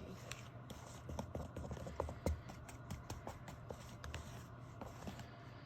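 Paint being stirred by hand in a container: irregular light clicks and scrapes of the stirrer against its sides, over a low steady hum.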